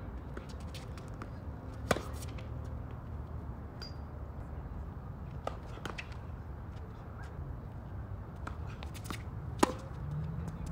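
Tennis rackets striking the ball: a sharp hit about two seconds in, a fainter strike from the far end of the court around the middle, then a loud topspin backhand hit near the end. A steady low hum runs underneath.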